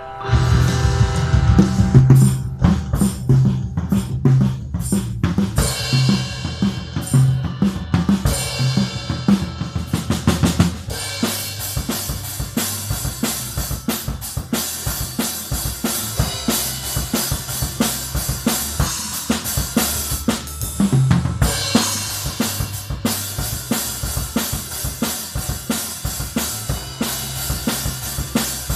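Acoustic drum kit played in a steady groove of bass drum, snare and tom strokes, coming in at full volume at the start, with crash cymbals splashing a few seconds in and again about two-thirds of the way through. Underneath runs the recorded song being covered, its low bass notes holding under the drums.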